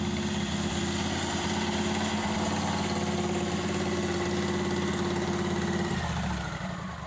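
Lawn tractor V-twin engine with straight dual exhaust pipes and no muffler, idling steadily, then dying away about six seconds in as its whine glides down.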